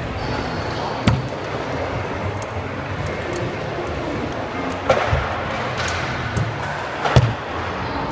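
Stunt scooter riding on skatepark ramps: wheels rolling over a steady background din, with three sharp knocks from the scooter hitting the ramp, about a second in, near the middle and, loudest, near the end.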